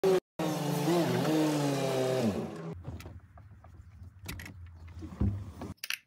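A motor vehicle driving past on the road, its engine pitch dropping as it goes by, followed by a quieter low engine hum with a few clicks and knocks.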